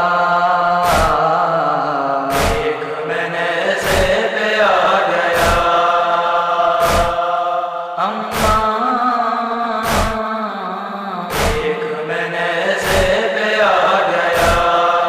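Wordless male chorus chanting a sustained backing drone for a noha lament, with a deep thump about every one and a half seconds that keeps the beat of matam, the ritual chest-beating.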